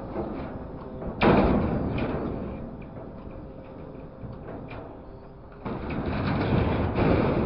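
Grapple truck's hydraulic claw working over a steel scrap box. Loud metal clattering and rattling starts abruptly about a second in and dies away, then builds up again near the end, over a faint steady hum.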